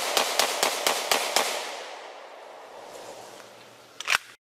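Rapid gunfire, about four shots a second, stopping about a second and a half in; the echo fades over the next couple of seconds. A single sharp crack sounds near the end.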